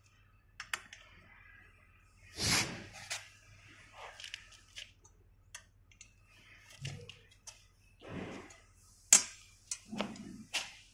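Handling noise from assembling a chrome-plated metal chair frame: scattered clicks and taps of small metal parts against the frame, with a few scraping or rustling bursts. The loudest is a scrape about two and a half seconds in, and there is a sharp click about nine seconds in.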